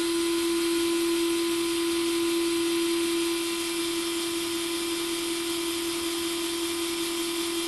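WORX WX240 mini cordless electric screwdriver running free with no load, its small motor giving a steady whine as the bit spins at about 320 rpm.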